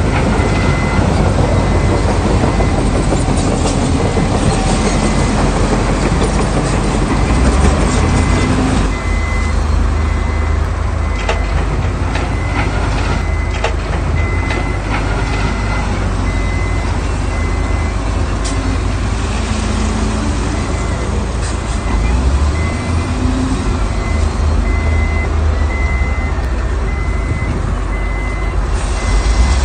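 Diesel engines of heavy earthmoving machinery running hard, with a reversing alarm beeping at an even pace through most of it and occasional metallic clanks.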